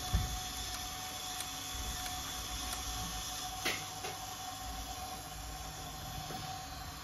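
Small electric motor and gearing of a Meccano Unimog 411 model running steadily with a thin hum while the tipper body lowers, with a sharp metallic click a little past halfway.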